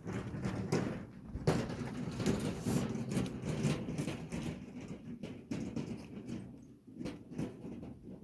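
A run of irregular knocks and clatter, densest in the first half and thinning out near the end.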